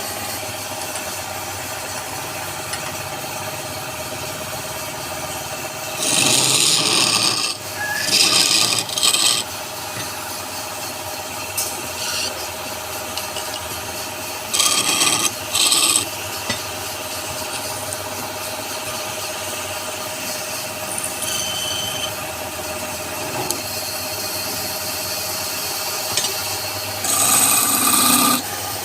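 Wood lathe running steadily, with several short bursts of a tool or abrasive rubbing against the spinning wood.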